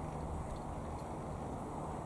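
Wind rumbling on the microphone outdoors: a steady low rumble with no distinct events.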